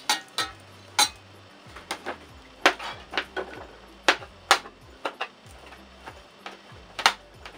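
Kitchen knife chopping boiled potatoes on a plastic cutting board: a series of sharp, irregular knocks, one or two a second.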